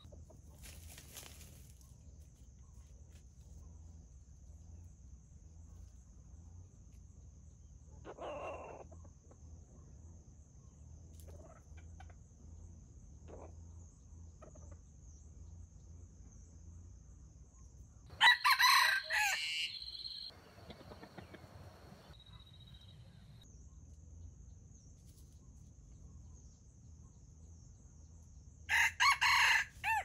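Rooster crowing: a fainter crow about eight seconds in, then two loud crows, one about two seconds long just past halfway and a shorter one near the end. A steady high-pitched insect hum runs underneath.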